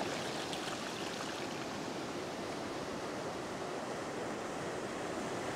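Ocean surf breaking and a thin wash of water running over the sand, a steady rush with a faint fizzing crackle.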